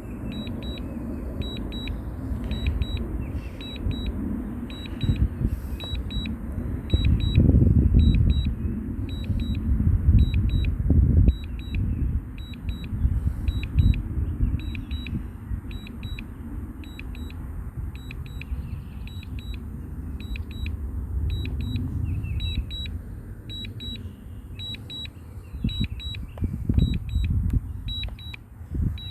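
DJI Mavic Air 2 remote controller beeping steadily in short double beeps about once a second: the alert it sounds while the drone is on Return-to-Home. Underneath is a low rumble of wind on the microphone that swells and fades.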